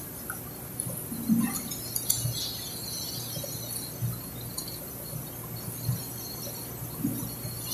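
A few soft knocks and clicks of parts and tape being handled on a concrete floor, over a steady low hum and a high, continuous chirring of insects.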